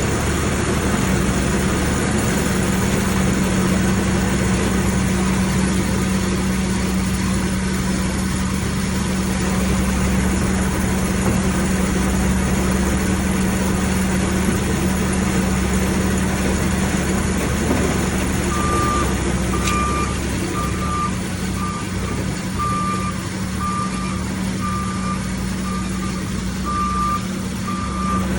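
Skid steer loader's engine running steadily. About two-thirds of the way in, its reversing alarm starts beeping, about one beep a second.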